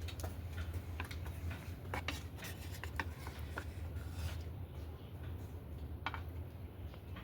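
Irregular light clicks and scraping or rubbing sounds, like hands working with objects, over a steady low hum.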